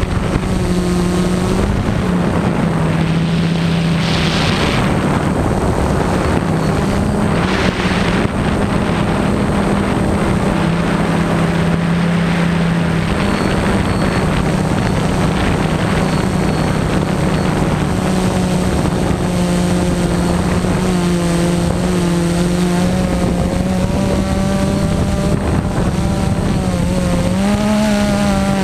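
Multirotor drone's electric motors and propellers buzzing in flight: a steady hum whose pitch steps up and down as the throttle changes. Two short gusts of wind noise come about four and seven seconds in.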